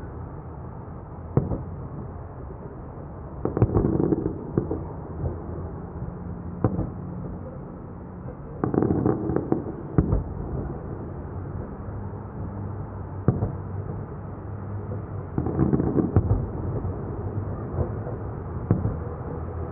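Fireworks display: aerial shells bursting with sharp bangs. Clusters of rapid bursts come about every five to six seconds, with single booms in between.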